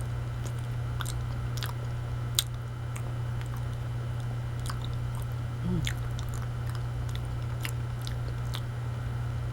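Person chewing banana with the mouth, soft wet clicks and smacks scattered through, over a steady low hum. A short voiced murmur comes about six seconds in.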